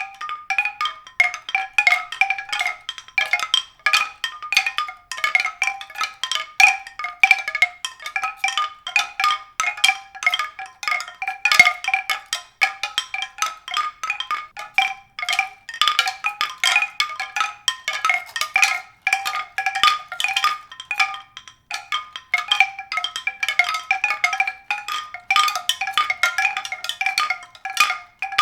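Pitched percussion: a steady stream of quick struck, ringing notes, several a second, on a few recurring pitches, without a break.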